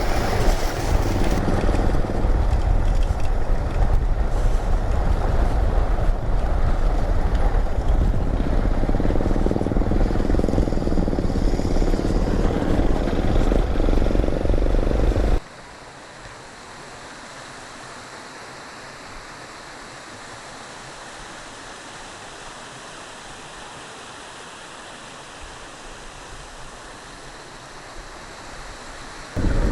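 Motorcycle engine running under way on a dirt road, a loud rumble mixed with wind noise; about halfway through it cuts off abruptly to a much quieter, steady hiss.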